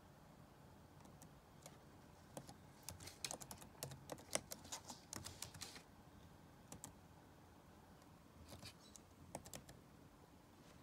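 Faint typing on a computer keyboard: a quick run of keystrokes starting about two seconds in and lasting roughly three and a half seconds, then a few scattered key clicks later on.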